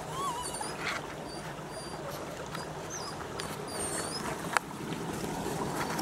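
Footsteps and brushing through leafy undergrowth, with small birds giving short high chirps several times in the background. A single sharp click comes about four and a half seconds in.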